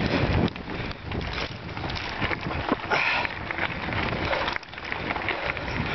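Wind buffeting the microphone of a moving mountain bike, over a steady rush of tyres on a rough dirt trail and frequent small knocks and rattles as the bike jolts over the bumps.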